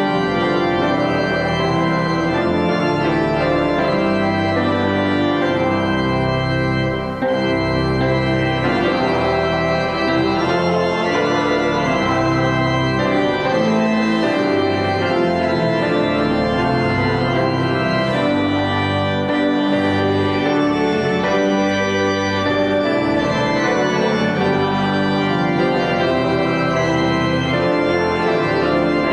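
Church organ playing music in sustained, changing chords.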